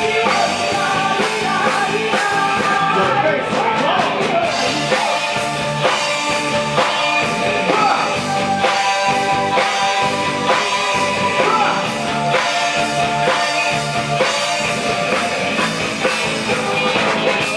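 Rock band song with a lead vocal over guitar and drums, playing steadily with a regular beat.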